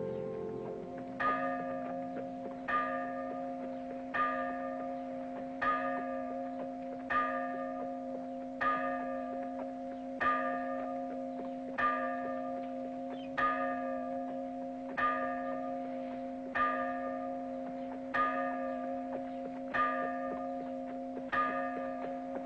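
A single church bell tolling slowly, struck about every one and a half seconds, each stroke ringing on into the next over a steady hum. A brass music cue fades out just before the first stroke.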